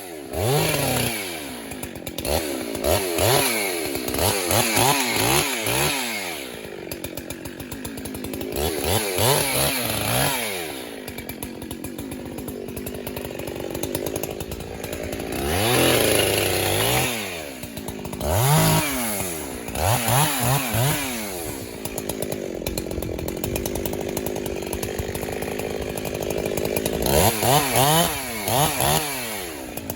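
A chainsaw cutting through a tree, its engine revving up and dropping back again and again as the chain works through the wood.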